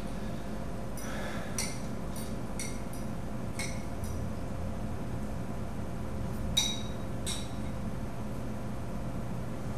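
Eating utensil clinking against a ceramic bowl while eating: a run of light clinks in the first four seconds, then a sharper, ringing clink about two-thirds through and another just after, over a steady low room hum.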